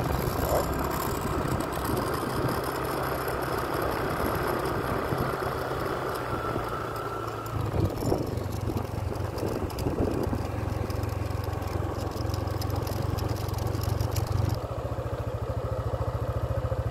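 Motorcycle engine running as the bike is ridden, heard from on board with a rushing road and wind noise over it. Near the end the rushing drops away, leaving the engine's even low pulsing.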